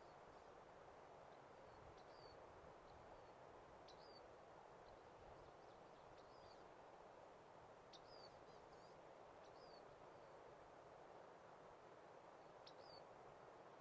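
Faint wild-bird chirps: short, high notes that slur quickly, repeating every second or two at irregular spacing. They sit over a steady soft hiss of outdoor ambience.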